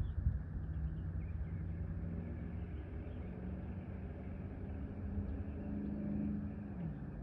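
An engine hums steadily over a low rumble, its pitch stepping up slightly and then dropping away about seven seconds in. A few faint bird chirps sound above it.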